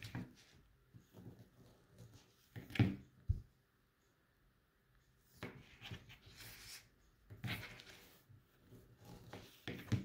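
Slices of dark rye bread being handled and cut with a serrated paring knife on a plastic cutting board: scattered soft scrapes, crusty rustles and light taps, with a louder knock about three seconds in.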